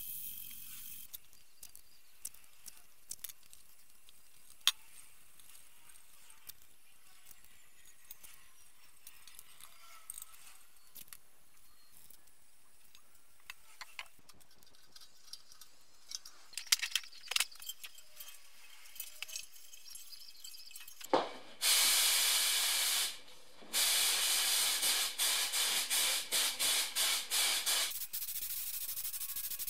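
Compressed-air paint spray gun hissing as it is triggered: one long burst, then a quick run of short on-off bursts at about three a second, then a quieter steady hiss near the end. Before this, faint handling with a few sharp clicks and knocks.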